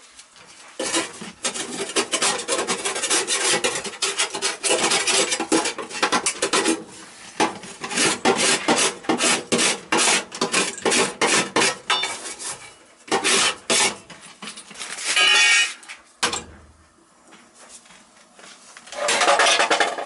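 Metal-on-metal scraping and rasping as a gas furnace's inducer fan and motor assembly is worked loose from its sheet-metal cabinet: a fast run of short strokes, then a pause, then a louder scrape near the end as the housing comes free.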